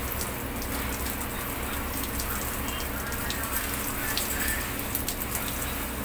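Water from a hand-held shower spraying onto a dog's coat and the stainless steel wire cage: a steady spray with scattered drops ticking.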